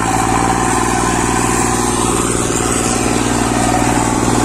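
New Holland 5620 tractor's diesel engine running steadily at raised revs while pulling a loaded trolley.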